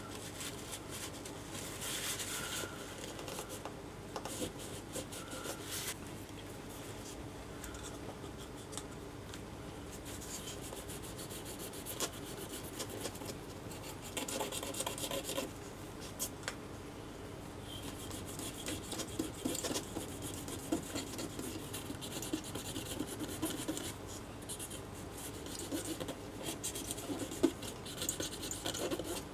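A wipe rubbed back and forth over a circuit board in irregular strokes, cleaning up the freshly reflowed solder joints of a RAM chip, with small clicks in between.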